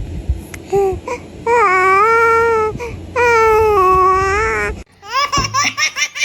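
A newborn baby vocalizing: a few short sounds, then two long, drawn-out cry-like wails held at a steady pitch. After a sudden break near the end comes a run of quick, short vocal sounds.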